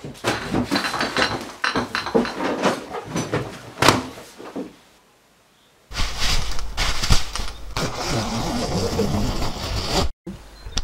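Irregular clicks and rustles of handling for the first few seconds. After a brief silence comes the rustling and crinkling of a disposable nonwoven protective coverall being pulled on and zipped, over a low rumble, with one sharp click partway through.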